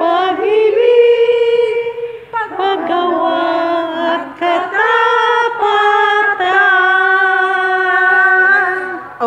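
A group of women singing a hymn together without accompaniment, in phrases of held notes, closing on one long held note that fades near the end.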